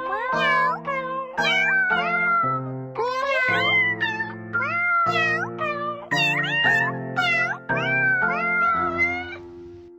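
A novelty tune made of pitched cat meows, about two a second, over steady keyboard chords; it fades out near the end.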